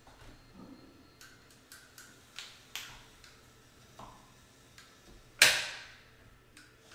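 Manual caulking gun being squeezed while a bead of caulk is laid: a series of separate clicks from the trigger and plunger rod, with one much louder, sharper click about five and a half seconds in.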